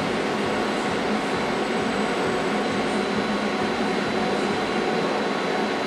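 Steady machinery noise in a workshop, an even fan-like whir with a faint high steady whine, unchanging throughout.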